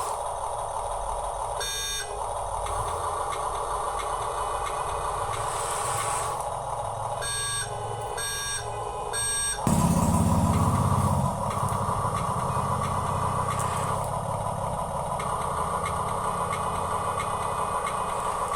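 Electric gear motors of Huina remote-control construction models whining steadily. A short beep comes about two seconds in, then three evenly spaced reversing beeps around eight seconds. Near ten seconds a louder low engine-like rumble starts suddenly, easing after a second or so and carrying on under the whine.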